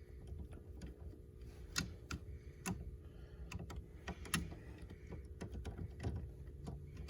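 Irregular light clicks and taps of a hand tool working out small screws and bolts, with metal parts clinking, over a low steady hum.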